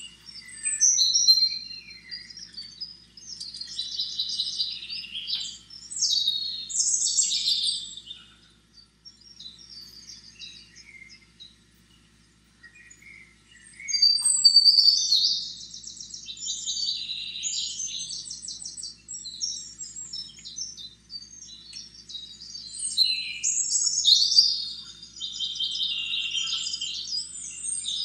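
Small songbirds chirping and singing in quick, overlapping phrases, with a lull of a few seconds partway through.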